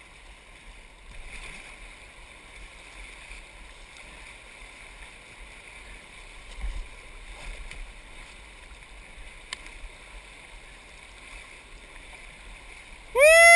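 White-water riffle rushing past a kayak's hull as the boat runs through it, an even hiss of fast water with a few light knocks. Near the end a loud whoop cuts in.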